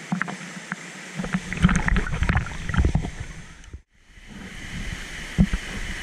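Water sloshing and splashing against a camera held at the surface of a swimming pool below a waterfall, in heavy low thumps, with the waterfall's steady hiss behind. The sound cuts off suddenly just before four seconds in, then the hiss and splashing resume.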